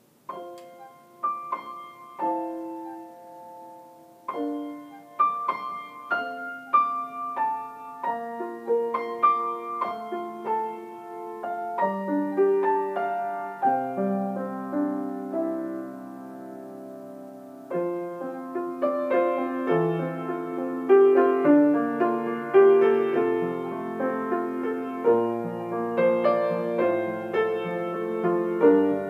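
Grand piano played solo, starting from silence with sparse notes in the middle and upper register. Bass notes fill out the texture about halfway through, and it grows louder in the last third.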